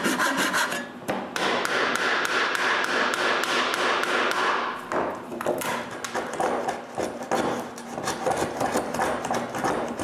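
A hand backsaw cutting wood in quick, steady strokes. About halfway through, the sawing gives way to uneven scraping and tapping as a chisel pares the cut clean.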